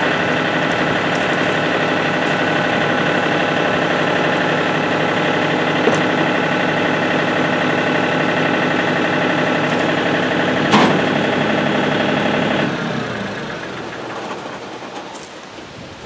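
John Deere compact tractor engine idling steadily, then shut off about three-quarters of the way through and running down to a stop. A single sharp click comes about two seconds before it cuts.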